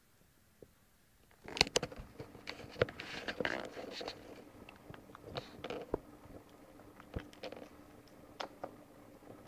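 A baby's close mouth clicks and smacks as she eats finger food with her fingers in her mouth, mixed with rustling handling noise as the camera is brought in close. It starts about a second and a half in, is densest for the next few seconds, then thins to scattered clicks.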